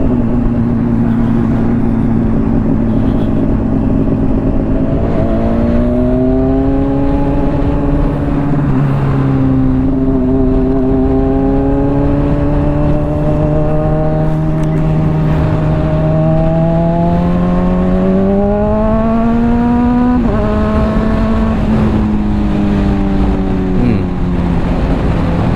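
Honda CBR600RR's inline-four running through a Hotbodies Stinger slip-on exhaust at moderate cruising revs. The engine note climbs slowly and steps down sharply twice, about nine and twenty seconds in, then holds steady. A low rush of wind runs underneath.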